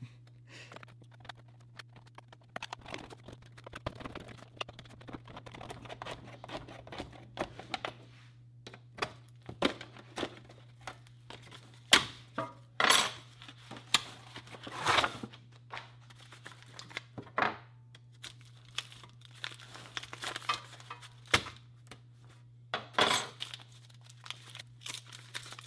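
Thin steel lid of a sealed Soviet ammunition spam can being cut and pried open with its can opener, a long run of short metal-cutting strokes with louder scrapes and bends partway through. Near the end, paper-wrapped ammunition packets rustling and tearing, under a steady low hum.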